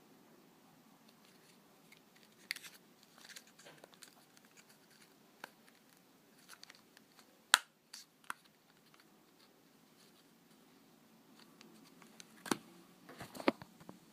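Scattered small clicks, taps and scratches of hands handling small hard objects, with one sharp click about seven and a half seconds in and a cluster of clicks near the end.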